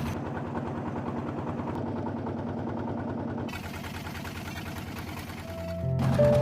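Small boat engine running steadily with an even pulse. Music comes in near the end.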